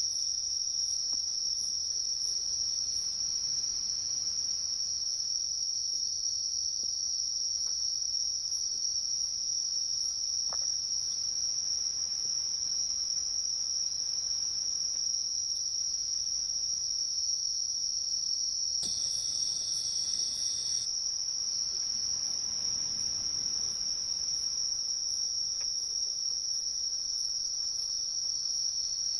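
Insect chorus: one steady, unbroken high-pitched shrill trill. For about two seconds, two-thirds of the way through, a second, higher insect call joins in.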